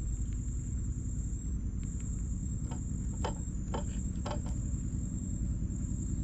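Insects trilling on one steady high note over a constant low rumble, with a few short clicks about three to four seconds in.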